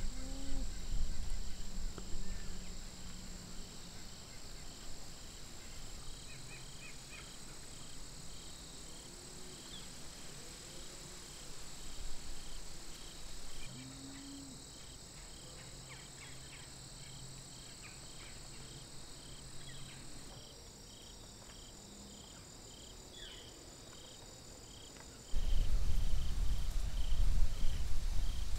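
Field crickets and other insects chirping: a steady high trill with a regular chirp about twice a second, and a few short bird calls. Near the end a loud low rumble lasts about three seconds.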